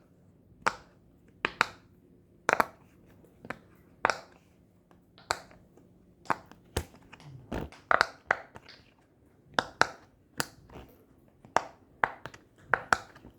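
Silicone pop-it fidget toy shaped like a Nintendo Switch, its bubbles pressed one after another: a string of sharp little pops, unevenly spaced, about one or two a second.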